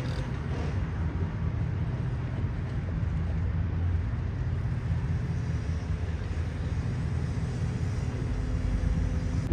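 Steady low rumble of outdoor background noise, with a faint steady hum on top.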